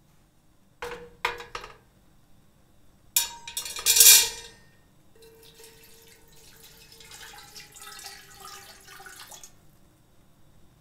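Clanks of metal cookware being set down in a pot, a pair early and a louder cluster about four seconds in, then water poured from a glass bowl into a large metal pot over a wire steaming rack, splashing steadily for about four seconds before stopping.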